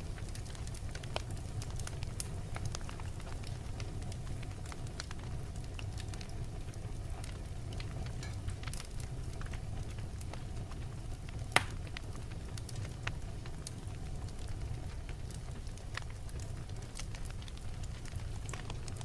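Wood fire burning in a fireplace: a steady low rumble with scattered small crackles, and one sharp, loud pop a little past the middle.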